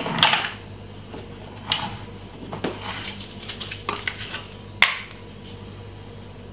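A few light clinks and knocks of kitchen utensils and seasoning containers being handled, roughly a second apart, the sharpest about five seconds in, over a low steady hum.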